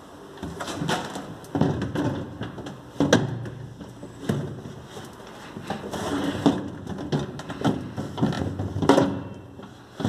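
Plastic drawer of a refrigerator being worked back into its place, giving irregular knocks and scraping of plastic on plastic, with a few sharper knocks.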